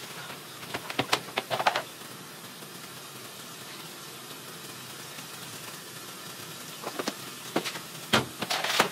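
Scattered clicks and knocks of household items being handled and moved about on closet shelves, in two short clusters about a second in and near the end, over a steady faint hiss.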